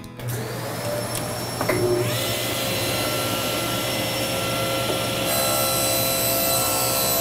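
Cabinet table saw starting up: its whine rises as the motor comes up to speed, a second rise about two seconds in, then a steady run, with more high whine joining about five seconds in as it cuts a board.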